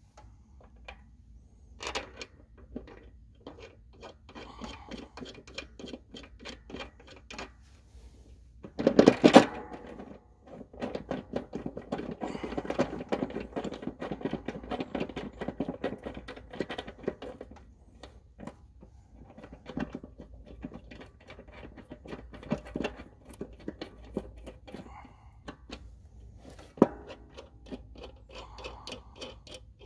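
Metal clinks and clicks of a replacement mower deck spindle housing and its nuts being fitted to a steel deck by hand, with one loud clank about nine seconds in and a dense stretch of rapid clicking after it.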